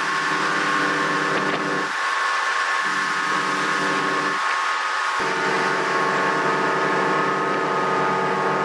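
Twin 200 hp Evinrude E-TEC two-stroke outboards running steadily at high speed, over a rush of wind and water.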